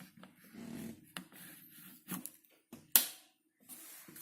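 A few clicks and light knocks from hands working at a dishwasher, the sharpest about three seconds in.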